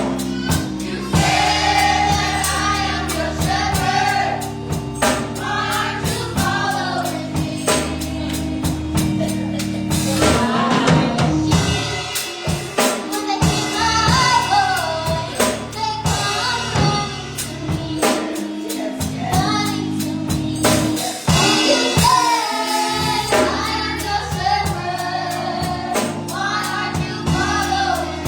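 Gospel choir singing with keyboard or organ chords and a drum kit keeping a steady beat.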